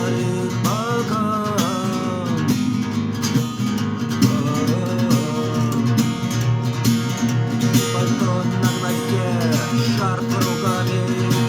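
A song with guitar and a singing voice over a steady bass line.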